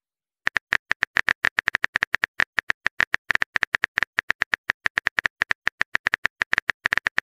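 Rapid keyboard tap clicks of a texting app as a message is typed out, about eight short clicks a second, starting about half a second in.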